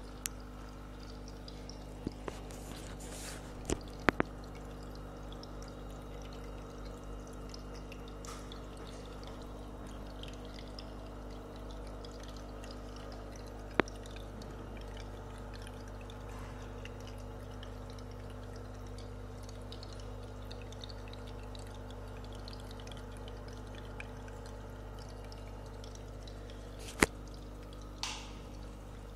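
Aquarium filter running: water steadily trickling and splashing back into the tank over a constant low hum, with a few sharp clicks here and there.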